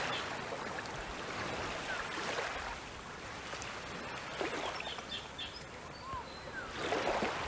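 Small waves washing gently onto a sandy shore from a calm sea, the wash swelling and fading, with a few faint short chirps.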